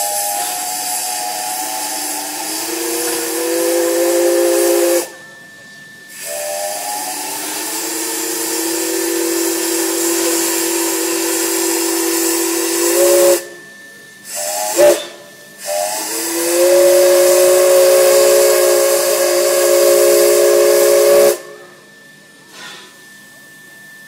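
Steam locomotive whistle blowing several notes at once over a loud hiss of steam. There are three long blasts of about five to seven seconds each, with two short toots between the second and third.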